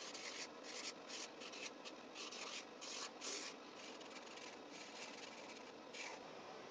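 A Sharpie marker's felt tip rubbing across lined notebook paper as letters are written, faint, in short scratchy strokes. The strokes come thick and fast for the first few seconds, then fewer and further apart.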